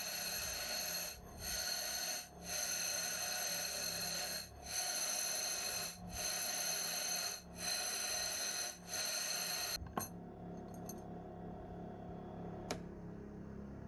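Power grinder grinding the tips of a bundle of stainless steel electrodes to sharpen them, a steady high whine with brief breaks every second or two as contact is lifted. It stops suddenly about ten seconds in, leaving a low hum and one sharp click near the end.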